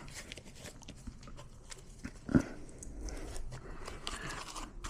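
Handling noises from a portable speaker in a fabric case: soft rustling and light clicks as it is handled, with one short, louder sound about two and a half seconds in.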